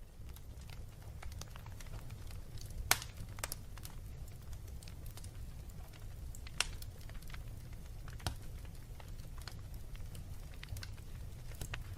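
Wood fire burning in a fireplace: a steady low rumble of flames with scattered sharp crackles and pops from the logs, one louder pop about three seconds in.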